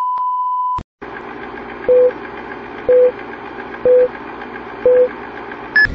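A steady test tone that cuts off with a click about a second in. Then a film-countdown sound effect: a film projector's rattling whir with four short beeps a second apart and one shorter, higher beep near the end.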